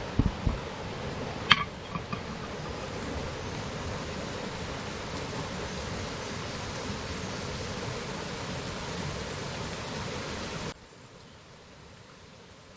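A few knocks and a sharp metallic-sounding clink at the start, then a steady rushing noise that cuts off suddenly near the end.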